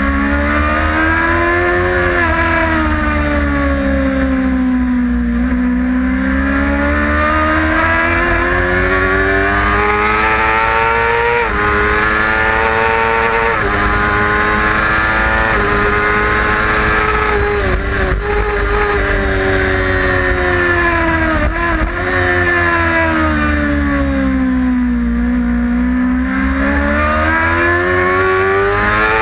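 Racing motorcycle engine at race pace, its revs falling and rising through the corners. About halfway through come three quick upshifts in a row, and a few seconds later there are downshifts under braking. A steady wind rush on the microphone runs underneath.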